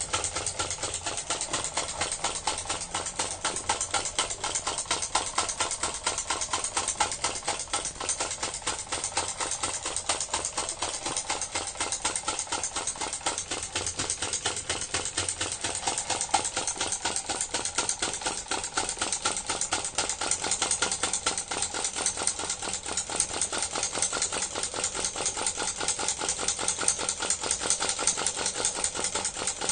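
Small vacuum (flame-licker) engine of a model car running steadily on its alcohol lamp: a rapid, even mechanical clatter.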